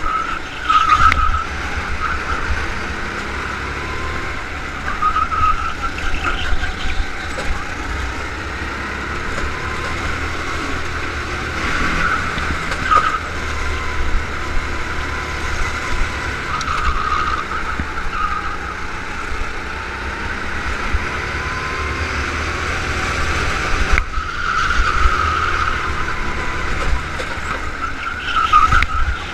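Go-kart engine running hard on a lap, heard from a camera mounted on the kart, its pitch rising and falling as the kart goes through corners, with wind buffeting the microphone.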